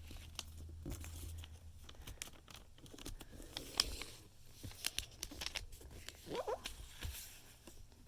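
Origami paper rustling and crinkling as a sheet is folded and its creases pressed down, with many small scattered crackles and taps.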